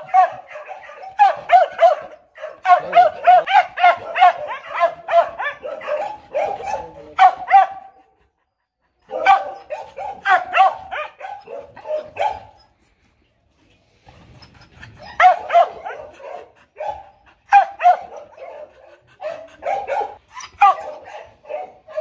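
H'Mông bobtail dog barking in rapid runs of sharp barks, breaking off briefly about eight seconds in and again around thirteen seconds in. The uploader takes it for demand barking, not a threat to bite.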